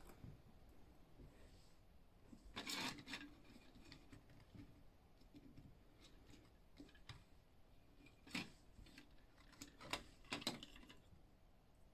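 Faint clicks and light knocks of small plastic toy parts being handled, fitted onto a plastic playset and set down on a tiled tabletop. The clicks are scattered, with a short cluster about three seconds in and a few more later.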